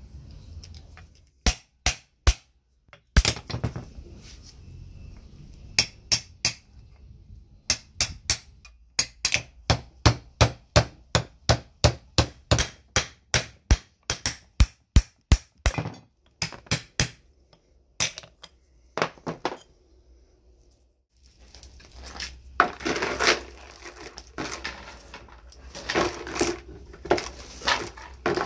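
Hammer striking the steel parts of a chain hoist: a long series of sharp, ringing metal-on-metal blows, about two a second at their steadiest. After a brief pause, rusty steel load chain rattles and clinks as it piles into a plastic bucket.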